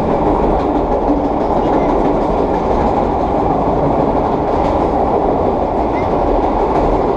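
Vintage R1/9 subway train running steadily, the growl of its straight-cut gears over the rumble of wheels on track.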